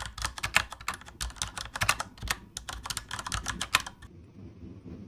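Typewriter sound effect playing back: rapid, uneven key clicks that stop suddenly about four seconds in.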